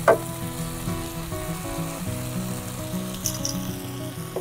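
Lamb steaks sizzling as they sear in a non-stick frying pan on a gas camp stove, with a sharp metallic knock of tongs on the pan just after the start. Background music plays underneath.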